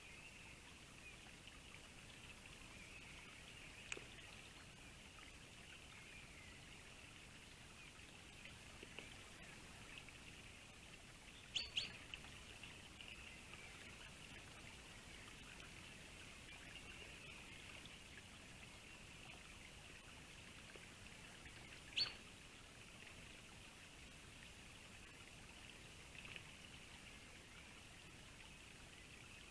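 Faint, distant birdsong in woodland, with a few short sharp snaps: a double one near the middle and the loudest one about two-thirds of the way through.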